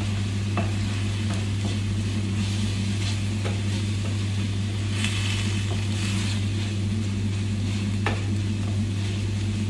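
Onion and tomato paste sizzling in a stainless steel frying pan while a wooden spoon stirs and scrapes it, with a few light knocks of the spoon on the pan. A steady low hum runs underneath.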